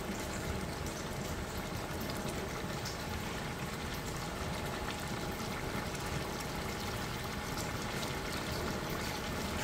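Large pot of chickpeas, tomatoes and spices in broth cooking on the stove, a steady even hiss of liquid simmering over the burner.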